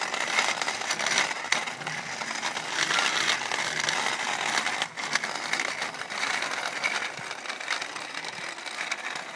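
Steady crackly rustling noise with many scattered small clicks: wind and handling noise on the microphone of a camera that is being carried along at the bicycle's pace.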